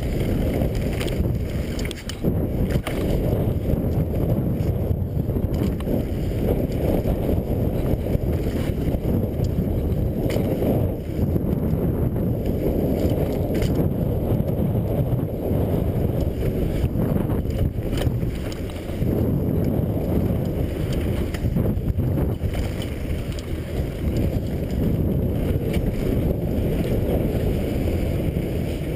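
Wind rushing over the microphone and the rumble of a downhill mountain bike rolling fast on a dirt jump trail, with occasional sharp knocks from bumps and landings.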